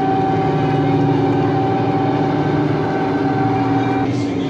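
Tracked armoured vehicles driving past: a loud, steady engine drone with a higher whining tone that stops about four seconds in.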